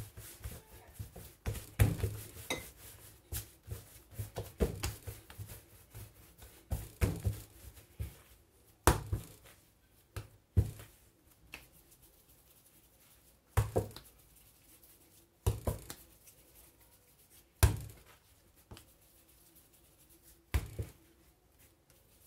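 Hands working brioche dough on a kitchen countertop: a quick run of soft knocks and slaps as the dough is torn into pieces, then single thuds every two to three seconds as the pieces are shaped into balls and set down.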